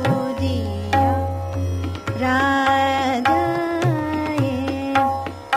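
Hindustani classical singing of a bandish in Raag Hansadhwani, the voice holding and gliding through a melismatic phrase, with tabla accompaniment.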